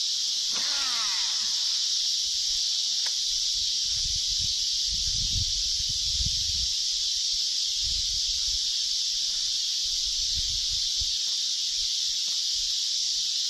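Steady high-pitched chorus of insects droning without a break, with a few soft low rumbles in the middle.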